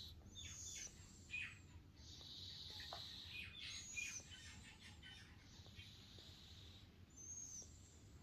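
A sleeping cat snoring faintly: a high, hissing wheeze on each breath, roughly every three to four seconds, with small squeaky whistles from the nose between them.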